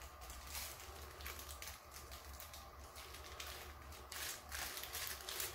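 Faint, soft rustles from a hand-squeezed piping bag as melted chocolate is drizzled over biscuits, repeating every second or so over a low steady hum.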